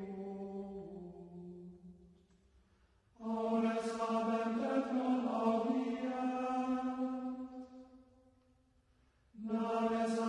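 Chant sung in slow, long-held phrases with brief pauses between them. One phrase fades out about two seconds in, the next runs from about three to eight seconds, and another begins near the end.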